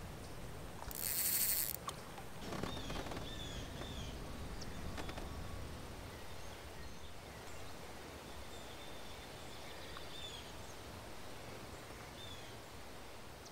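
Faint outdoor ambience by a lake: a low background hush with scattered short, downward-slurring bird chirps. A brief rush of noise comes about a second in.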